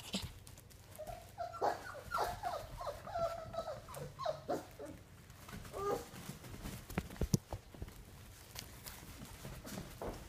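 A litter of young puppies playing, giving a run of short whines, yips and small play growls over the first half, followed by a few light knocks from their scuffling.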